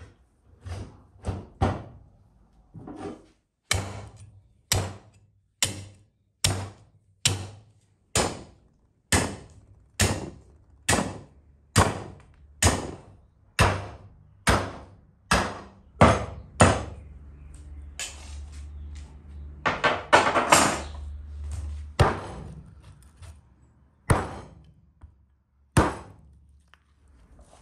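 Kitchen cleaver chopping a rack of raw lamb ribs on a wooden chopping board: a steady run of sharp thuds, nearly two a second. A little past the middle comes a denser, louder flurry of blows, then a few spaced chops near the end.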